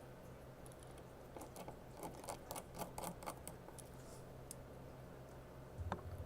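Faint, irregular small clicks and taps from tools and small parts being handled while an iPhone 6 is put back together, mostly between about one and three and a half seconds in.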